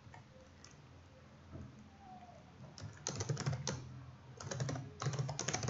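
Computer keyboard typing in quick bursts of keystrokes, starting about three seconds in after a quiet stretch.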